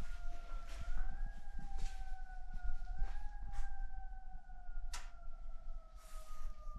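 A siren sounding in one long held tone that rises slightly and then slowly falls in pitch, over a low rumble with scattered clicks and a sharp knock about five seconds in.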